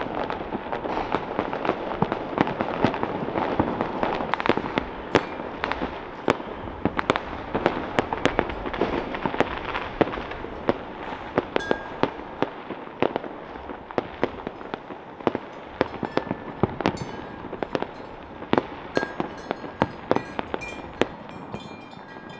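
Fireworks and firecrackers going off all over a city at once: a dense, unbroken mass of bangs with frequent sharper cracks standing out, thinning somewhat in the second half.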